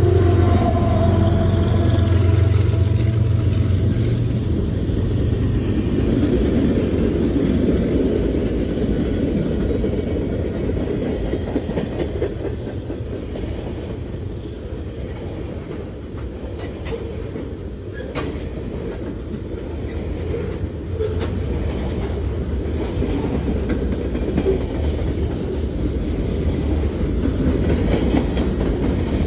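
Freight train passing at close range: the mid-train CSX ES44AH distributed-power diesel locomotive's engine drones low for the first few seconds and fades as it goes by. Tank cars and gondolas then roll past with a steady rumble and clickety-clack of wheels over rail joints, with a few sharp clicks.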